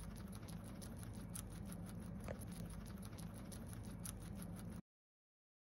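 Guinea pigs chewing long blades of fresh grass: a rapid, steady crunching of small clicks, which stops abruptly about a second before the end.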